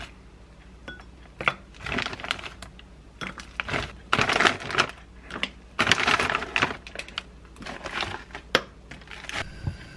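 Plastic bags of frozen shrimp and squid rustling and crinkling as the frozen pieces are shaken out and clatter into a glass mug of water, in several bursts with the busiest about halfway through.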